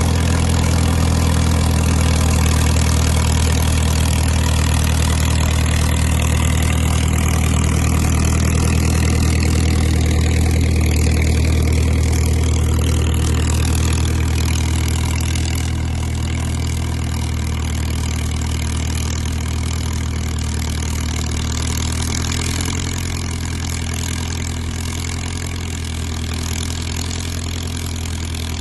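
Caterpillar crawler dozer's engine running steadily while dragging a trail, a low steady drone that eases off somewhat in the second half.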